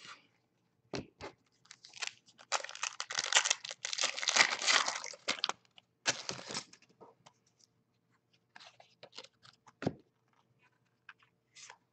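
Foil wrapper of a 2014 Certified football card pack crinkling and tearing as it is handled and opened: a dense crackle lasting about three seconds, then scattered smaller crinkles. A soft knock comes about a second in and another near the end.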